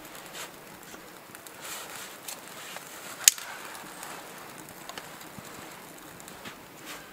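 Small kindling fire catching and crackling, with scattered snaps and one sharp, loud crack a little over three seconds in.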